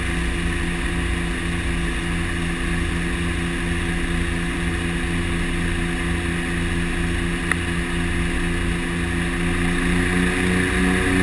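The twin Pratt & Whitney PT6A turboprops and propellers of a DHC-6 Twin Otter drone steadily, heard from inside the cockpit, with several steady tones over a low throb. Near the end the drone grows louder and some of its tones edge up in pitch. A faint click comes about seven and a half seconds in.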